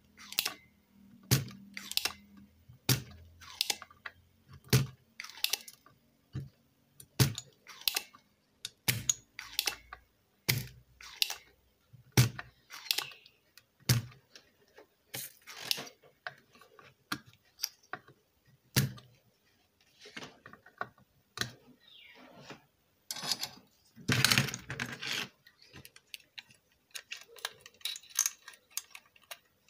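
Spring-loaded desoldering pump (solder sucker) snapping over and over while solder is drawn off an IC's pins on an amplifier board: a sharp click about once a second. Toward the end comes a longer, louder clatter of handling.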